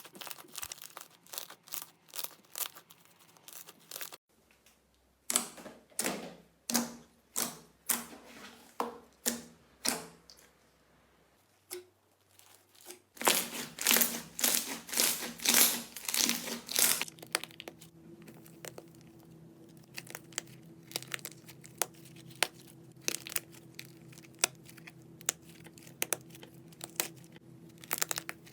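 Slime being pressed, poked and squeezed by hand, giving sharp crackles, pops and clicks: rhythmic presses about once a second, a dense burst of crackling past the middle, then sparser clicks over a faint steady hum.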